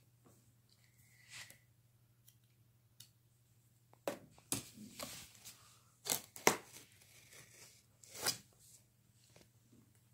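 Knife slitting the tape along a cardboard toy box: a string of short cutting and tearing strokes, starting about four seconds in.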